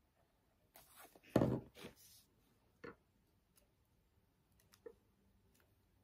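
Hands handling paper and card pieces on a wooden tabletop: a short rustling burst with a soft knock about a second and a half in, then a few light taps.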